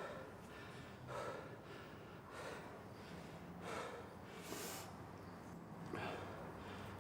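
A person taking sharp, noisy gasping breaths, about five short ones spaced a second or so apart.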